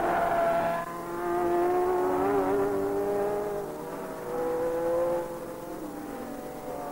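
A 1960s Formula One racing car's engine at full throttle, its note breaking and changing pitch as it shifts gear about a second in and again shortly after five seconds, then quieter near the end as the car moves away.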